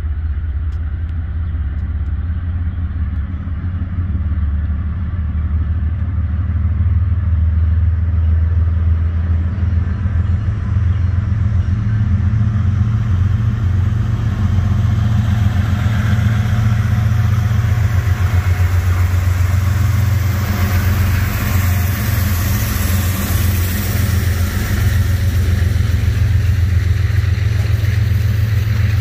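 Diesel freight locomotive engine running, a steady loud low drone, with a hiss of wheel and rail noise growing from about halfway through.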